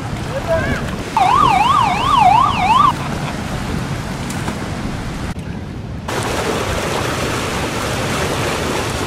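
A police siren yelping briefly, its pitch sweeping rapidly up and down about three times a second for under two seconds, over a steady rushing noise of surf, flowing water and wind.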